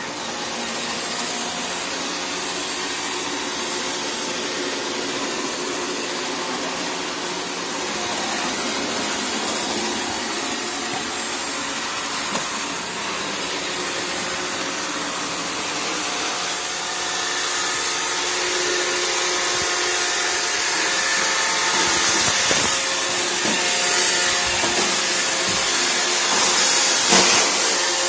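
iRobot Roomba 676 robot vacuum running: a steady whir from its suction fan and brushes with faint steady tones, growing louder in the second half, with a few short knocks near the end.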